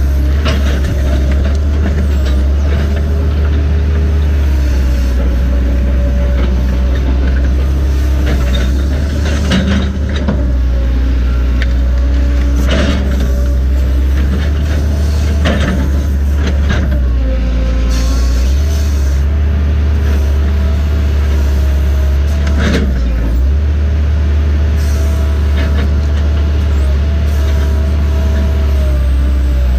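Diesel engine of a log-handling machine running loud and steady, heard from the operator's cab, with tones that shift up and down as the boom and grapple move a log. Several sharp knocks and clanks come through the running noise.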